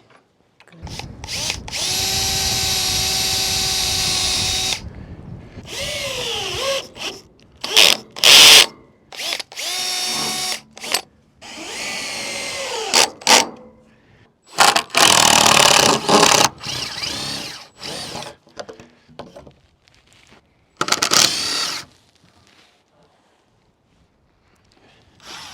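Power drill running in a series of stop-start bursts, its pitch rising and falling with the trigger, the longest run about two seconds in. It is drilling holes and driving screws to fasten a deck railing panel.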